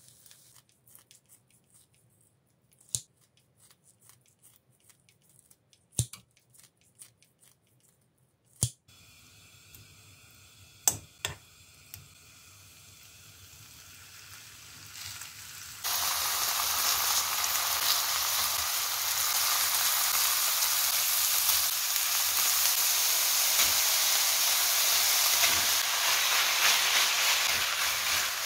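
Beef and seaweed frying in a nonstick wok. It starts nearly quiet, with a few sharp clicks of metal tongs on the pan. A faint sizzle then builds and jumps to a loud steady sizzle about sixteen seconds in, as wet seaweed goes into the hot pan.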